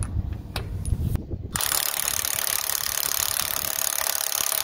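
Bosch GDX18V-1800C cordless impact driver hammering on a conveyor roller flange bearing's mounting bolt: a dense, steady rattling that starts suddenly about a third of the way in. Before it, a few light metal clicks as the bolt and washer are handled.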